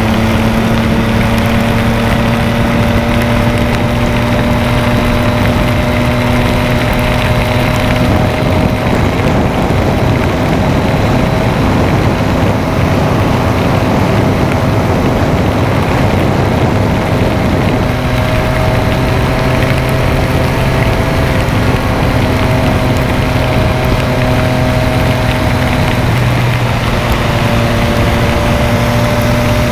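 Motorcycle engine running at a steady highway cruise, its pitch drifting gently up and down, over a constant rush of wind and wet-road noise in the rain.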